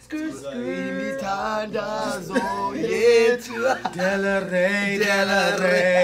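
A man singing slow, held notes, one voice with a slight waver on each note.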